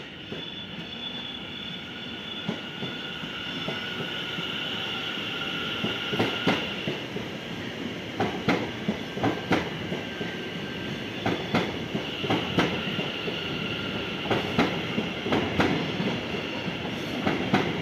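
A c2c Class 720 Aventra electric multiple unit, two units coupled, passes slowly. A steady high whine runs over the first several seconds. From about six seconds in, the wheels click sharply and irregularly over rail joints and points, and the sound grows slowly louder toward the end.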